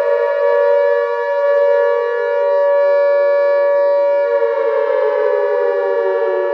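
Civil defense siren wailing: a loud, held tone with a lower layer that slowly falls in pitch as it winds down.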